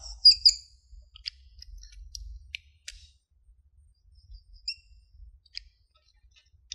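Marker squeaking on a whiteboard while wavy underlines are drawn beneath the characters: a scatter of short, faint, high squeaks and ticks.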